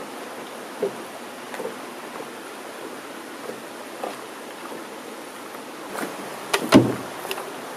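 Steady outdoor rushing noise with a few soft footfalls and knocks as a person walks a portage trail carrying a cedar strip canoe on his shoulders, then a sharp double knock near the end, the loudest sound.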